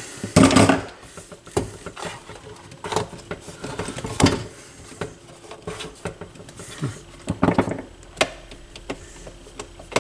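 Irregular clicks and knocks of hands handling and turning a turntable as it is being taken apart. The loudest knocks come near the start and about four seconds in.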